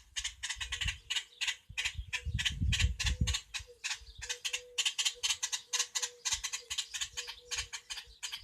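Dry rustling and crackling made of many quick clicks a second, with a faint steady hum. A low rumble of wind or handling on the microphone comes about two to three seconds in.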